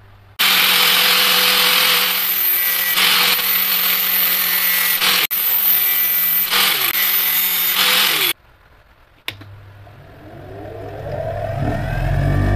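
Angle grinder cutting through a steel jigsaw blade, a loud steady grinding hiss over the motor's hum for about eight seconds. After a click, a bench grinder's motor spins up, its hum rising in pitch until it settles at full speed near the end.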